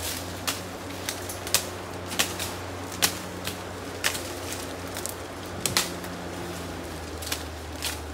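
Irregular sharp cracks and snaps, about one or two a second, of a machete cutting brush and small stems, over a low steady hum.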